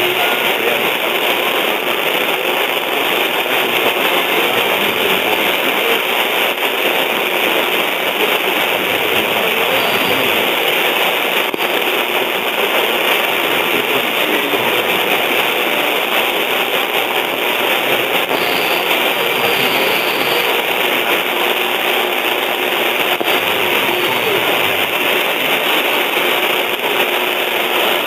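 Steady static hiss from an LX-U250A mini stereo system's AM tuner tuned to a distant 1260 kHz station, the signal faded down into the noise with no programme audio coming through clearly. The hiss is even and unchanging, muffled with no treble.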